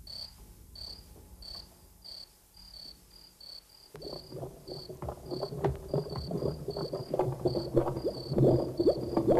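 Crickets chirping steadily, two or three high chirps a second, as a night-time sound effect. About four seconds in, a louder, busy layer of short crackles and pops joins and grows.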